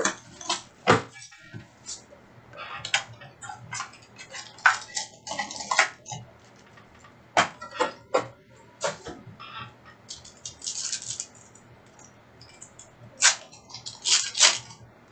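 Football trading cards being handled: irregular sharp clicks and snaps with short papery and plastic slides as cards are flipped, sorted and sleeved, with a longer rustle about two-thirds of the way in.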